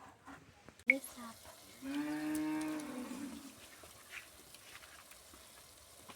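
A cow mooing once, a single call of about a second and a half that holds its pitch and then drops at the end. A sharp knock comes just before it, about a second in.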